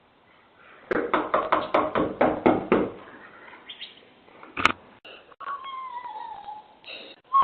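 A hand knocking rapidly on a front door, about ten knocks in two seconds, then one more sharp knock. After that comes a high, wavering cry that falls in pitch.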